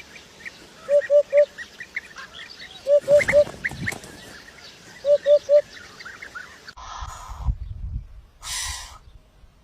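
Birds calling: a low three-note call repeated about every two seconds, over a steady scatter of higher chirps from other birds. Two short rustling noises come in the second half.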